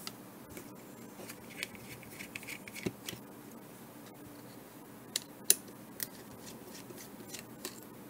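Small Torx screwdriver backing out tiny screws from a GPS unit's circuit board: faint scattered clicks and scrapes of the metal bit in the screw heads, with a few sharper ticks a little past the middle.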